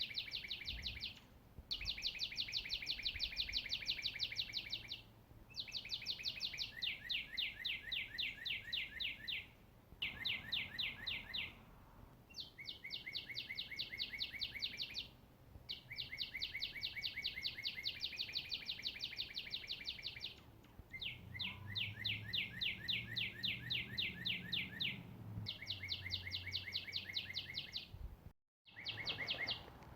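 A songbird singing a series of long, rapid trills of evenly repeated high notes, each trill lasting two to four seconds with short pauses between. A faint low rumble sits behind the song in the second half.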